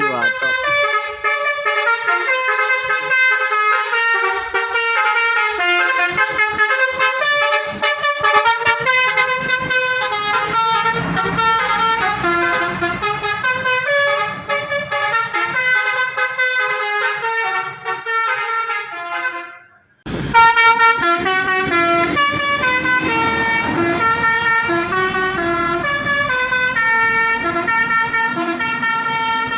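An intercity bus's 'basuri' musical horn plays a tune in held, stepping notes. It breaks off about twenty seconds in, and another basuri tune starts right after.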